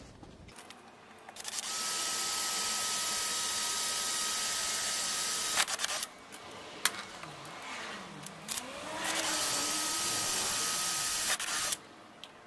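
Cordless drill boring through a plastic number plate into the scooter's plastic rear bodywork. It runs steadily for about four seconds and stops with a few clicks. After a wavering whir it runs again for about two and a half seconds before stopping.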